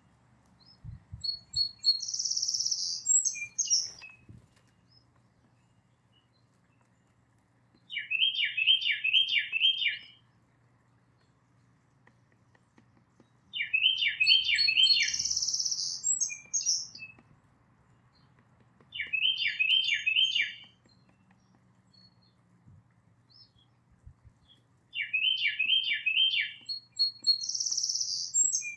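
Songbird singing: four phrases of about five quick down-slurred whistled notes each, coming every five or six seconds. Short, higher-pitched calls fall between the phrases.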